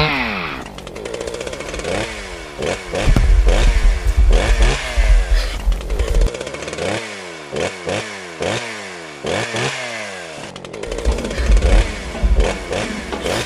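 Gas chainsaw engine revved up and down again and again, its pitch swinging in quick rises and falls. Heavy low rumbling comes in two stretches, from about three to six seconds in and again near the end.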